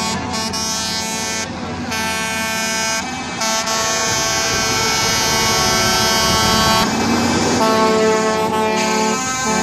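Trucks driving past, sounding long air-horn blasts that change pitch a few times over their engine noise.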